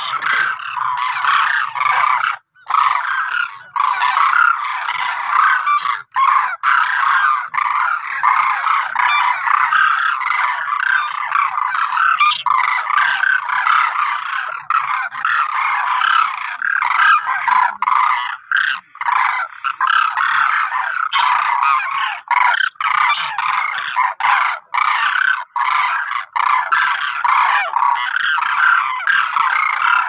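A flock of demoiselle cranes calling continuously, many calls overlapping with no pause, broken only by a few brief gaps.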